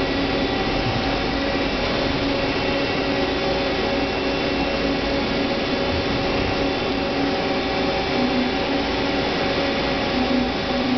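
Hyundai HiT-30M CNC turning center running: a steady machine hum with several steady whining tones layered over it, while the tool turret moves on its axes.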